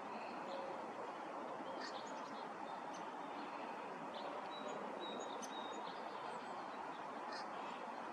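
Steady outdoor background noise with faint, scattered chirps and short whistles of small birds.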